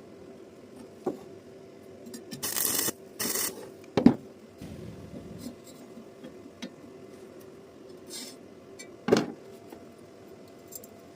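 Metal workpieces being handled: two short rasping, scraping strokes, then sharp knocks of metal on metal, with a few lighter clicks over a faint steady hum.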